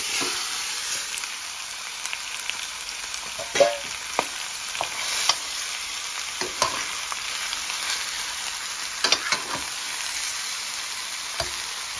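Seasoned chicken pieces sizzling in hot oil in a stainless steel pan. The sizzle starts suddenly as the chicken goes in and then holds steady, with scattered knocks and scrapes of a spoon against the pan as the pieces are stirred.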